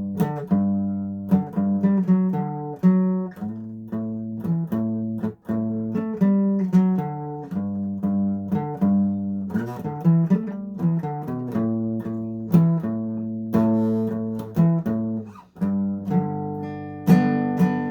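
Guitar music: a run of plucked notes and chords, each ringing out and fading, with brief breaks about five and fifteen seconds in.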